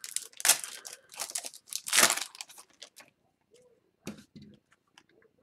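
A hockey card pack's wrapper being torn open, with crinkling in a run of bursts over the first three seconds, the loudest about two seconds in. After that come only a few faint clicks as the cards are handled.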